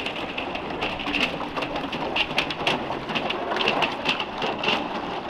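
Thin canal ice cracking and breaking up against a steel narrowboat's hull as the boat pushes through it: a dense, irregular crackle of sharp ticks and tinkles over a steady hiss.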